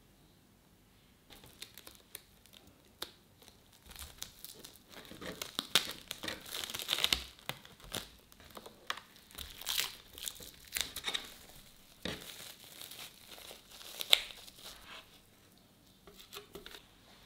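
Plastic cling film crinkling and crackling as it is folded and pressed tightly around a soft lump of dough. It starts about a second in, comes in irregular handfuls of crackles, and has one sharp crackle near the end.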